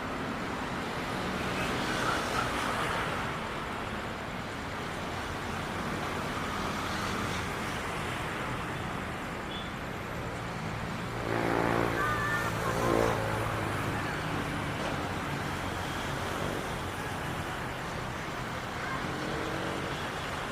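Steady vehicle engine and traffic noise, with a louder vehicle passing, its pitch rising and falling, about eleven to thirteen seconds in.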